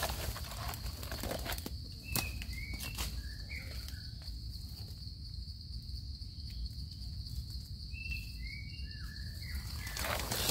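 Short, high bird chirps in two clusters, a couple of seconds in and again around eight to nine seconds, over a steady high-pitched insect drone. A few soft clicks and rustles from handling in the leaf litter.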